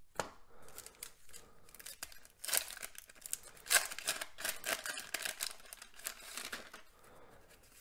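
Waxed-paper wrapper of a 1989 Donruss baseball card pack being peeled and torn open: a run of crinkling and tearing, loudest in the middle.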